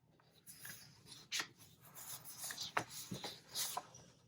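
Paper sticker sheets being handled: irregular crackling rustles and light clicks, with a few brief squeaks.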